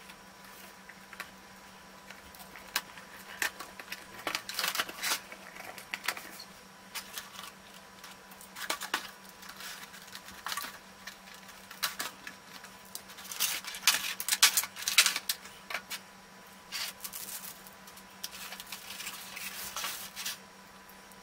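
Hands unpacking a boxed figure: cardboard box handled, then a clear plastic blister tray and a plastic bag crinkling and clicking in irregular rustles, loudest in two spells in the first and middle parts.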